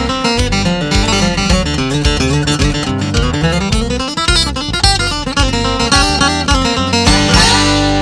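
Country music led by quickly picked acoustic guitar, moving to a ringing strummed chord near the end.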